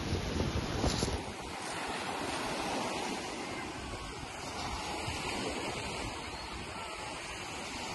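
Sea waves breaking and washing up a shingle beach, a steady rushing hiss. Wind buffets the microphone for about the first second.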